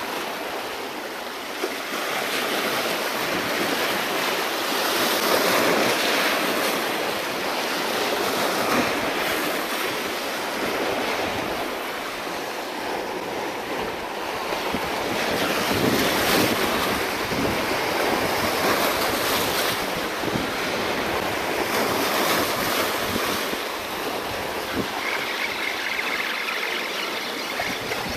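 Sea waves washing and breaking against the rocks of a shoreline jetty, swelling and ebbing in slow surges.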